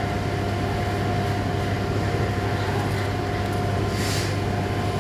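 Machine engine running steadily at constant speed: a low hum under a steady whine. A short scraping hiss comes about four seconds in.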